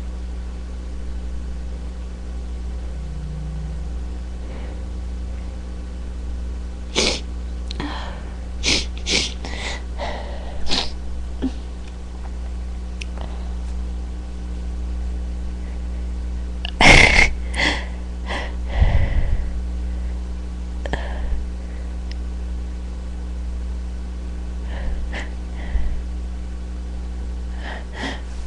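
A person sniffling in short sharp bursts, with one loud sneeze a little past halfway and a few more sniffs after it. A steady low electrical hum runs underneath.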